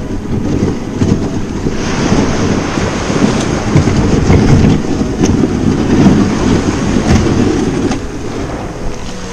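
Plastic kayak hull grinding and scraping over beach shingle as it is moved down to the water, a rough continuous rumble that grows louder about two seconds in and eases off near the end as the boat reaches the water's edge.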